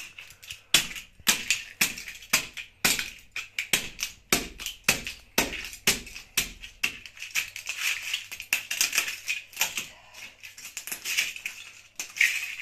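Plastic scale-model airplanes cracking and crunching under wedge sandals as they are trampled. It is an irregular run of sharp snaps and clattering shards, several a second.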